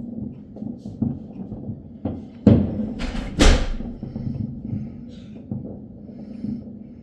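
Two loud fireworks bursts a little under a second apart near the middle, the second longer and hissier, over a low steady background rumble.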